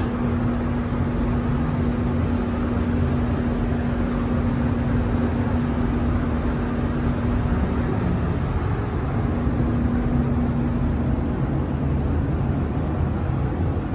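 Spray paint booth's ventilation running: a steady rush of air with a low rumble and a steady hum that drops out briefly about eight seconds in and stops a couple of seconds before the end.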